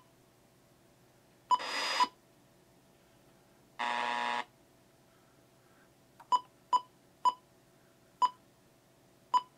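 Icom IC-R7100 receiver's keypad beeps: one beep about a second and a half in with a short burst of static from the receiver's speaker, a second short burst of radio noise around four seconds, then five short beeps of one pitch as a frequency is keyed in.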